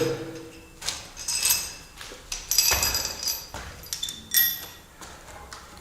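Metal washers clinking as they are dropped one at a time onto threaded anchor studs: a handful of separate metallic clinks, each with a short high ring.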